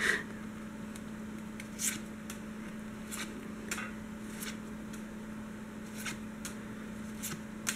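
Pokémon trading cards being slid one at a time off a hand-held stack, each giving a short papery swish, about one every half second to second, over a faint steady hum.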